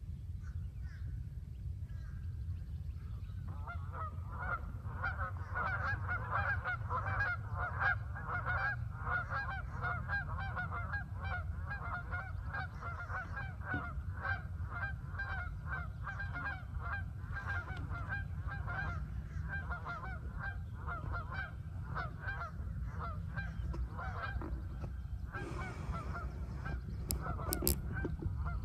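A flock of geese honking, many rapid overlapping calls, starting a few seconds in and going on almost without a break, over a low steady rumble. Near the end a rustle and a few clicks of the camera being handled.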